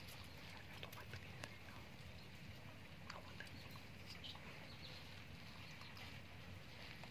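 Puppies lapping from a plastic cup: faint soft clicks over a low steady hum, with a few brief high squeaks in the middle.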